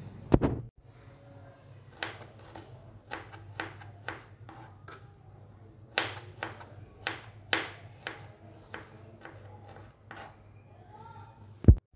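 Kitchen knife slicing shallots on a plastic cutting board: irregular sharp knocks of the blade against the board, about one or two a second. There is a loud thump near the start and another just before the end.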